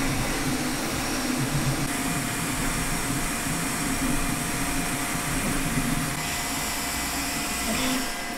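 Creality K1C 3D printer running a print: a steady whoosh from its cooling fans, with stepper-motor whirring underneath that keeps shifting in pitch as the print head moves.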